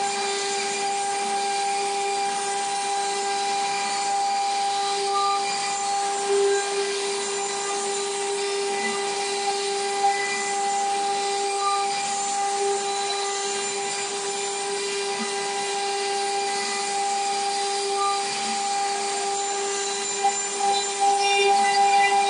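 Water-cooled spindle of a stone CNC router running at a steady pitch as its bit cuts a groove into a stone slab, a constant whine over the hiss and grind of cutting, with a few brief louder scrapes near the end.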